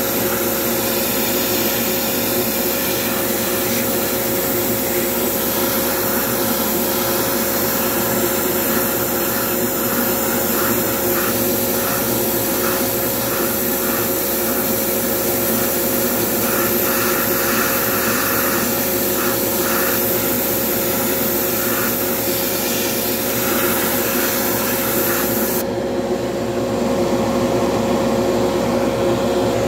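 Spray booth extraction fan running with a steady hum and rush of air, while an airbrush sprays paint in short bursts.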